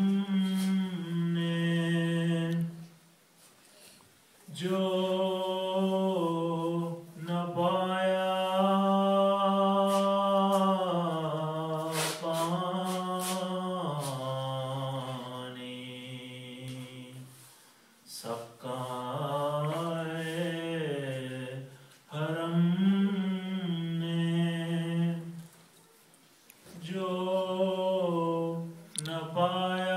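A man's solo voice chanting an Urdu salam, an elegy, unaccompanied, in long drawn-out melodic phrases with three short breaks for breath.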